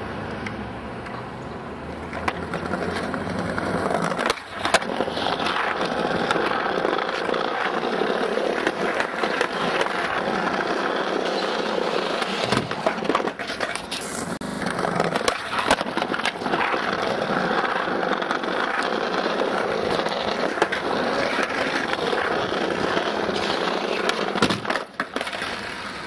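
Skateboard wheels rolling over paving stones and street surface: a steady rumble with a few sharp knocks.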